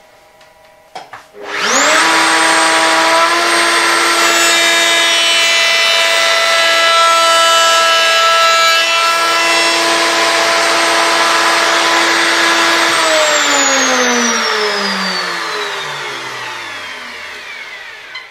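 Router in a router table switched on: it whines up to full speed in well under a second and runs steadily while the rail's end grain is fed on a sled past the ogee rail-and-stile bit, the cut adding a loud rushing noise. A few seconds before the end it is switched off and the whine falls away as the bit spins down.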